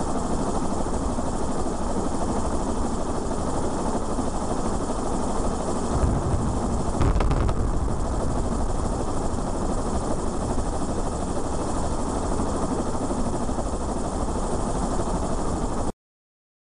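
Steady helicopter noise from the aircraft filming the implosion. About six to seven seconds in, a deeper rumble and a few sharp cracks come through as the explosive charges fire at the base of the concrete cooling tower. The sound cuts off abruptly near the end.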